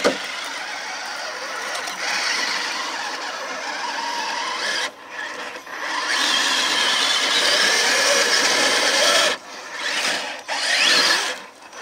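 Electric motors and gear drivetrains of RC crawler trucks, a Traxxas TRX-6 6x6 and an Axial SCX10, whining under throttle as they climb a dirt bank. The whine cuts out briefly a few times as the throttle is let off, and rises again near the end.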